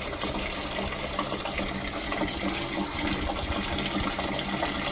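Water pouring steadily from a sink hose into the empty plastic wash tub of a mini twin-tub portable washing machine as it fills.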